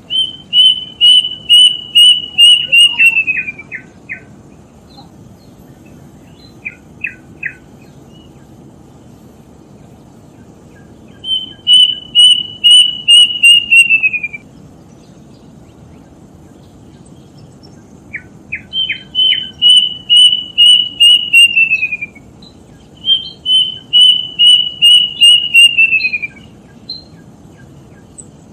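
A bird calling loudly and close by, repeating a rapid series of high, even notes for about three seconds that droops slightly in pitch at the end, four times over, with a few short down-slurred notes between some of the series.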